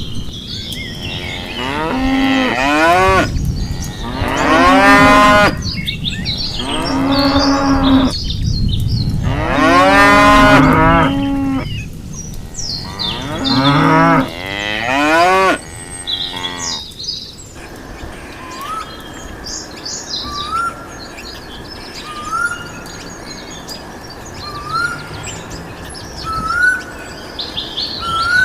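Cattle mooing: about six long, drawn-out moos one after another. Near the middle the cows stop and give way to birds chirping, with a short rising whistle-like note repeated about every second and a half.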